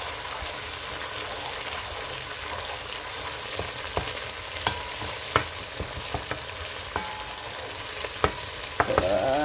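Onions, garlic and tomato paste sizzling steadily as they fry in oil in a nonstick wok. A wooden spatula stirs them, scraping and tapping the pan now and then.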